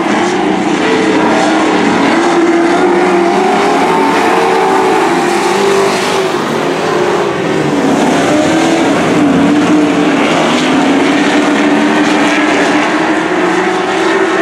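Dirt-track racing pickup trucks running at speed in a pack, several engines sounding together, their pitch rising and falling as they lift and accelerate through the turns.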